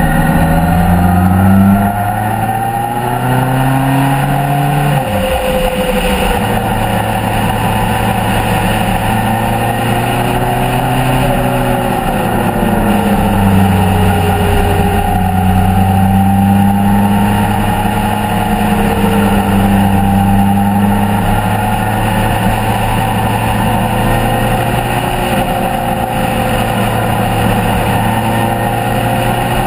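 Motorcycle engine heard from an onboard camera, pulling harder with rising pitch over the first few seconds. A gear change about five seconds in drops the revs, and it then cruises at fairly steady revs that rise and fall gently, over a steady rush of wind.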